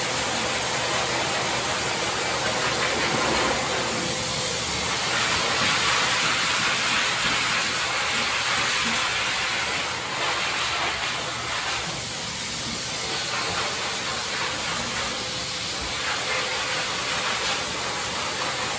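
Forced-air pet dryer blowing through a hose nozzle onto a dog's coat: a steady rushing hiss of air with a faint steady whine, swelling and easing slightly.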